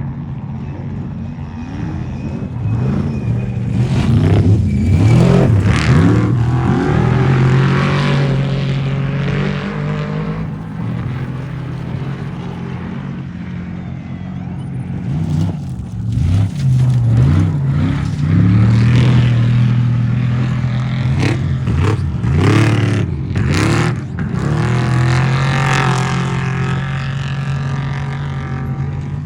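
Off-road race truck engines revving hard, their pitch climbing and falling again and again, with steadier running stretches in between. Loud, sharp bursts of noise break in several times.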